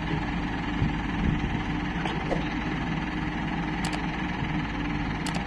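Diesel engines of a hydraulic excavator and farm tractors running steadily, with a few short, sharp ticks.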